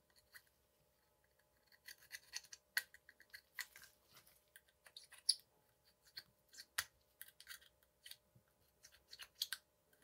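Small metal pick scraping packed gunk out from between a bicycle chainring's teeth: a faint run of short, irregular scrapes and ticks starting about two seconds in.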